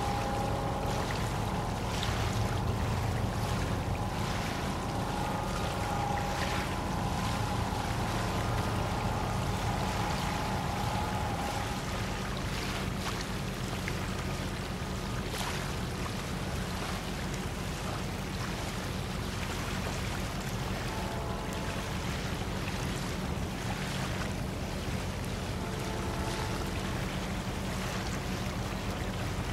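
Tugboat diesel engines working across the water, a steady low rumble with a faint whine over it through the first half and again near the end. Short gusts of wind noise come and go over the microphone.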